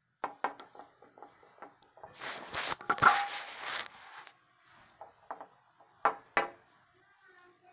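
Handling noise of a small plastic action figure: a run of light plastic clicks and taps as the detachable tails are worked, then a loud rubbing scrape close to the microphone about two seconds in, and two sharp taps about six seconds in.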